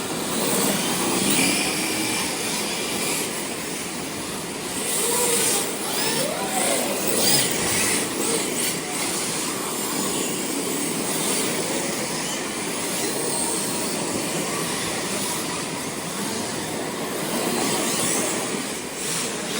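Radio-controlled drift cars running: electric motors whining up and down in pitch over the steady hiss of tyres sliding on the track.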